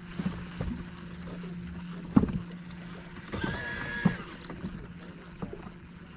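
A steady low motor hum on a fishing boat, with several sharp knocks, the loudest about two seconds in. A short high tone sounds for under a second a little past the middle.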